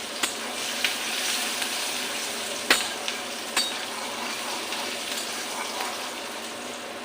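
Chopped onion sizzling as it fries in hot oil in a kadai, browning towards red. It is stirred, with a few sharp clicks against the pan, the loudest near three seconds in.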